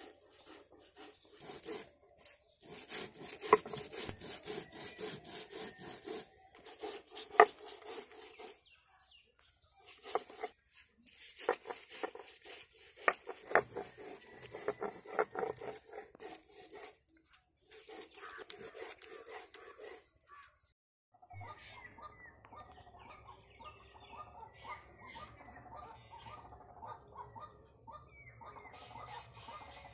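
A hand-held grinding stone rubbed back and forth over a wet stone slab to grind a paste: runs of scraping strokes with short pauses between them. About two-thirds of the way through the grinding stops and gives way to outdoor background with bird calls and a steady high hum.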